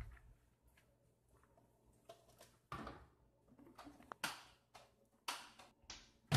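Handling noises: several knocks and rustles as things are moved about. Near the end comes a loud knock as a microwave door is shut.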